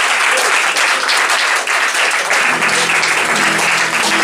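Live audience applauding between songs at a small acoustic gig. About two and a half seconds in, a steady low instrument note starts and is held under the clapping.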